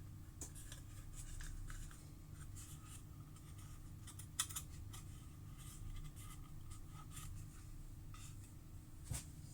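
Faint scratching and small clicks of something being handled, over a low steady hum.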